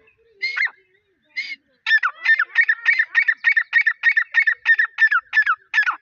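Grey francolin calling: two short separate calls, then from about two seconds in a fast, even run of repeated ringing notes, about four a second.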